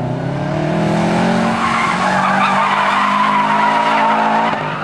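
Subaru Impreza WRX STI's turbocharged flat-four revving hard on an autocross run. The engine note climbs in pitch over the first second or so, then holds. Tyres squeal steadily through the second half as the car corners, then the sound drops away just before the end.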